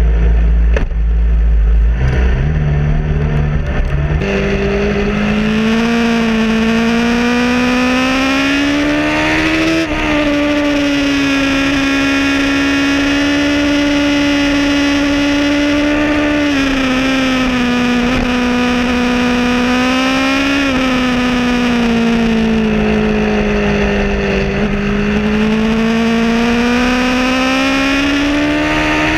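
Motorcycle engine under way, heard from the bike. It is a low rumble for the first few seconds, then the pitch climbs under acceleration, drops back with a gear change about ten seconds in, and holds steady at cruising speed. Near the end it eases off and picks up again.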